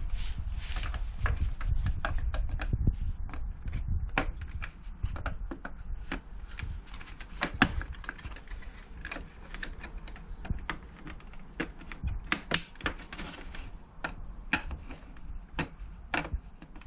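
Irregular clicks and light knocks of hard air-conditioner parts being handled and worked on, with a few sharper knocks now and then.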